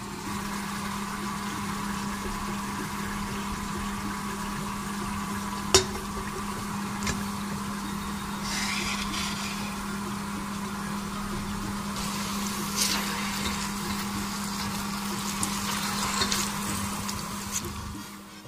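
Butter melting into hot oil in a steel pot, with a faint sizzle over a steady low hum. A few sharp clicks come through, the first about six seconds in.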